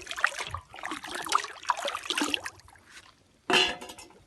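Liquid being poured into water and sloshing as a pesticide spray mix is made up, gurgling irregularly for about three seconds. A short, sharp noise comes near the end.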